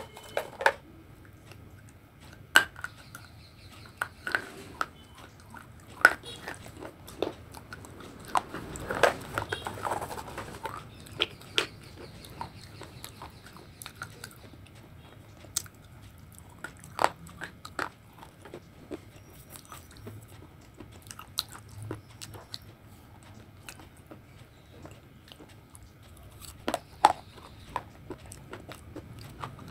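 Close-up biting and crunching, with sharp cracks every second or two and chewing in between. About nine seconds in there is a longer, denser run of crunching.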